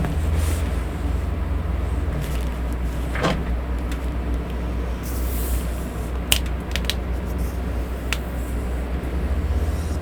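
Electric fan running as steady background white noise with a low hum. A few light taps and a brief rustle from handling come over it.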